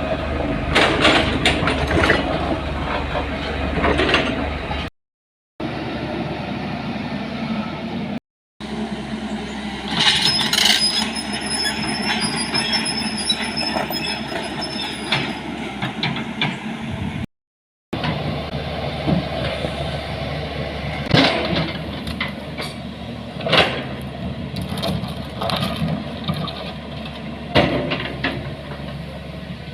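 Steady vehicle rumble with frequent knocks and rattles, broken by several abrupt cuts.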